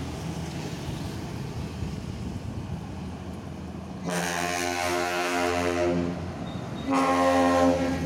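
Bus air horn of the 'kapal laut' (ship-horn) type sounding two long, chord-like blasts: one from about four seconds in and a louder one near the end. Steady traffic rumble runs under it.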